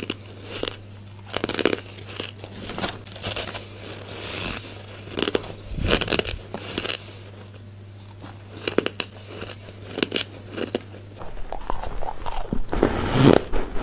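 Crumbly frozen ice chunks being bitten and chewed close up: dry crunching at an uneven pace.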